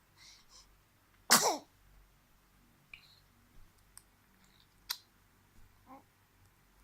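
A baby sneezing once, a single short, sharp sneeze about a second and a half in. A few faint clicks and small noises follow.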